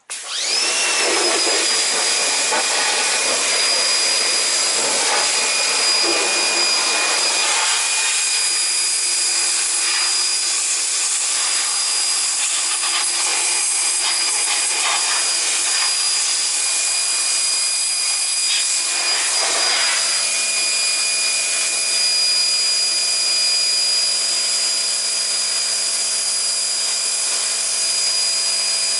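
A small high-speed electric motor starting and spinning up, then running steadily with a high whine over a loud hiss.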